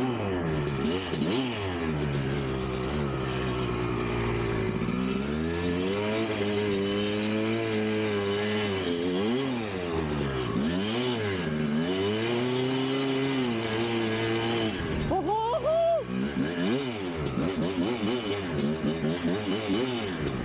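1999 Kawasaki KX250 single-cylinder two-stroke dirt bike engine revving up and down again and again under the throttle, with longer held high revs in between. About three quarters of the way through, a short high-pitched tone rises and falls over the engine.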